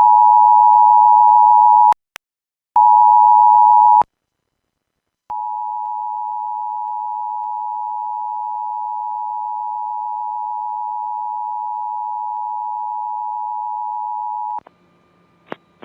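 Emergency alert attention tones: two loud steady beeps, then after a short silence one long, quieter steady tone lasting about nine seconds that cuts off near the end. They signal an incoming tornado warning message.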